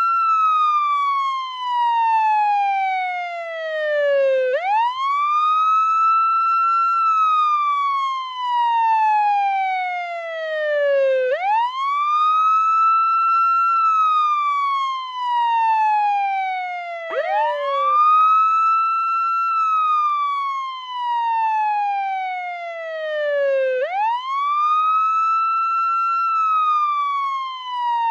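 Portuguese ambulance siren on its wail setting: the tone rises quickly, holds briefly at the top, then falls slowly. The cycle repeats about every six to seven seconds, four times.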